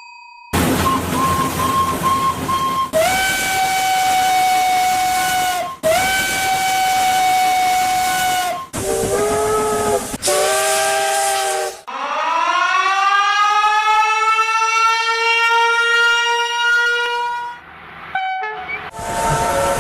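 A run of train horn blasts from different trains, cut one after another. There are single-pitch blasts and chord-sounding blasts, and one long blast of about five seconds whose pitch rises at the start and then holds steady.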